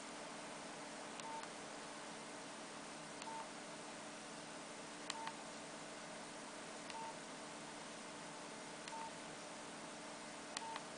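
Nokia 8600 Luna keypad tones as its menu is scrolled: six short beeps, about one every two seconds, each with a sharp click of the navigation key. A steady background hiss runs underneath.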